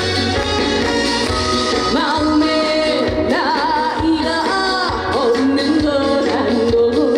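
A woman singing a trot song over an amplified backing band track, her voice sliding and wavering with vibrato over a steady bass beat.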